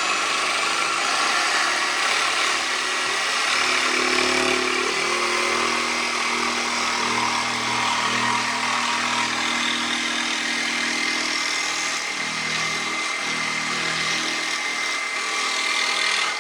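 Electric jigsaw cutting an angled line through a wooden clapboard, running steadily with a high whine and a motor note that shifts as the blade loads up, then stopping abruptly at the end of the cut.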